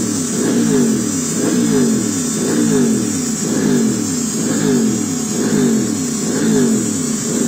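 Aprilia 660 parallel-twin engine breathing through a ZIIV Project aftermarket exhaust, revved over and over in short throttle blips about once a second, the pitch rising and falling with each blip.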